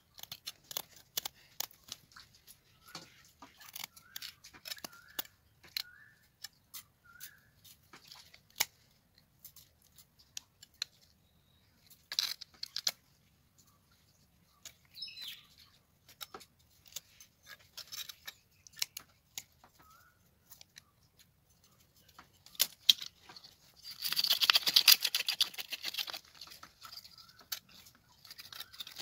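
Scissors snipping the fins and spines off a tilapia: a run of sharp, irregular clicks. Near the end comes a louder stretch of rasping as the fish's scales are scraped off.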